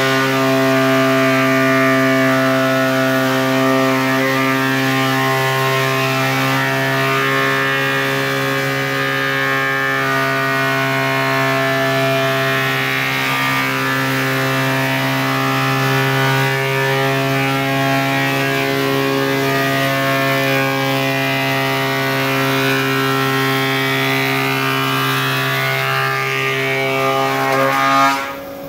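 Holzmann HOB 305PRO jointer-thicknesser running in thicknessing mode, planing an oak board: a loud, steady machine hum that dips briefly at the very end.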